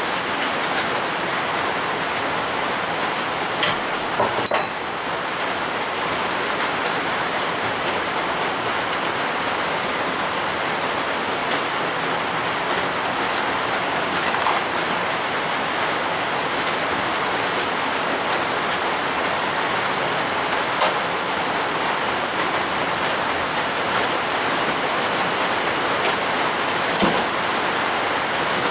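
A steady rushing hiss with no pitch, and a few sharp metal clinks from hand tools at the grinder base. The loudest clink comes about four and a half seconds in and rings briefly.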